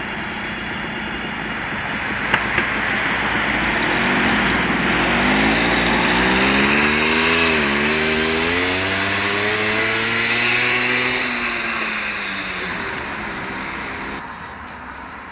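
Ganz UV tram approaching on the track: a rumble of wheels on rails that grows louder towards the middle and then eases off, with a humming whine from its motors that rises and falls in pitch. Two sharp clicks about two seconds in.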